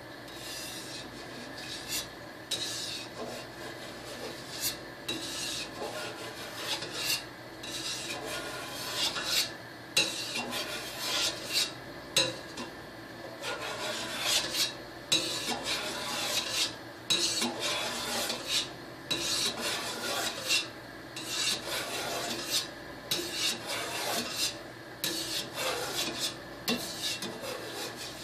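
A long knife cutting through set mozzarella curd in a stainless steel pot: repeated scraping strokes, roughly one a second, as the blade rubs along the pot's bottom and sides.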